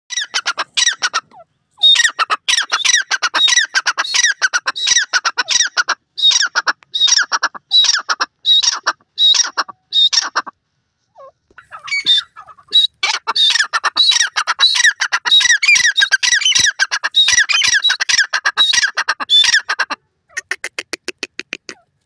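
Grey francolin calling loudly in long runs of rapid, repeated shrill notes. The calling breaks off for about two seconds near the middle, and a softer, quicker run follows near the end.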